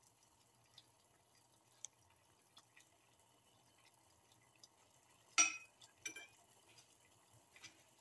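Water at a rolling boil in a pan with star anise and cardamom pods: faint bubbling with scattered small pops and drips, and a sharper pop or splash about five and a half seconds in, then another just after six seconds.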